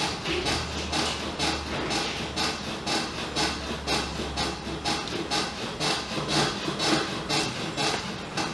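Brisk, rhythmic rubbing at about four to five strokes a second: hands working quickly back and forth over skin in a massage.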